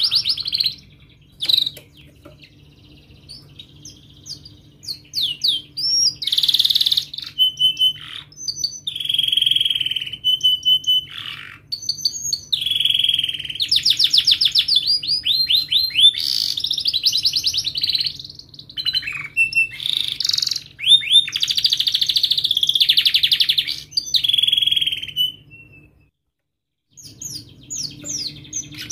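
Domestic canary singing: long phrases of fast chirps and rolling trills, some notes sweeping up and down, loud and continuous after a quieter few seconds near the start. The song cuts out briefly near the end, then resumes.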